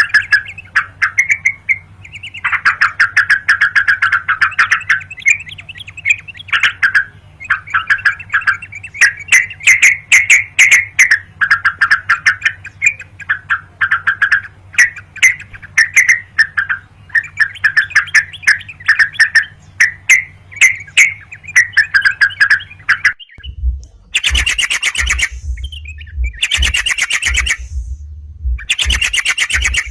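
Yellow-vented bulbul calling vigorously, a rapid, bubbly chatter of notes repeated in long phrases, the challenging song used to lure the bird. About 23 seconds in, the calls give way to louder, harsher bursts broken by short gaps.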